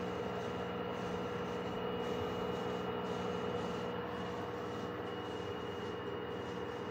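LG F2J6HG0W direct-drive washer-dryer spinning at steady high speed on its 1200 rpm spin: the drum and motor give a steady whine of several tones over a rushing noise.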